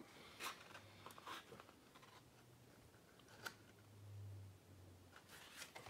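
Near silence with a few faint, short clicks and rustles from a sheet of watercolor paper being held up and shifted in the hands.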